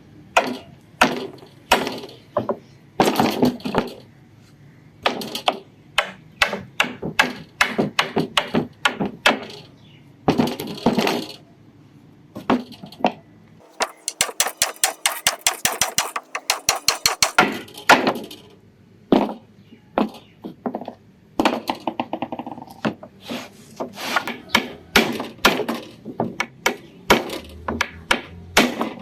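Repeated hammer blows on the bench's wooden parts, in irregular bursts of sharp knocks, with a fast even run of lighter taps, several a second, for about four seconds midway.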